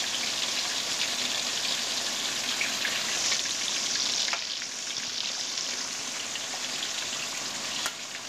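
Hamour fish pieces frying in hot ghee: a steady sizzling crackle with small pops, easing off a little about halfway through. A single sharp tap near the end, the metal spatula touching the pan.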